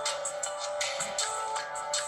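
A built-in Nokia C7-00 ringtone playing: an electronic tune of several layered notes over a regular percussive beat.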